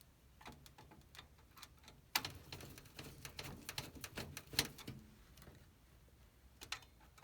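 Faint, irregular clicks and ticks of a screwdriver working the screws of a CPU heatsink, which are being tightened a little at a time, each in turn, so the heatsink seats evenly.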